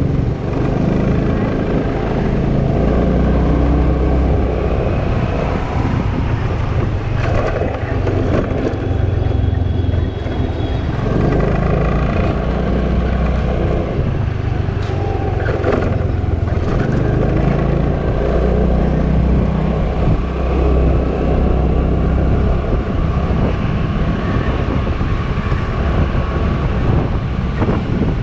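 Riding a motor scooter through city traffic: the scooter's small engine running at a steady cruise, with a strong low rumble of wind on the microphone and surrounding car traffic.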